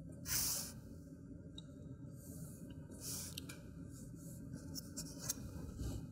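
Chalk scraping on a chalkboard as a straight line is drawn along a ruler: two short scratchy strokes, the first the louder, with a few light taps between them.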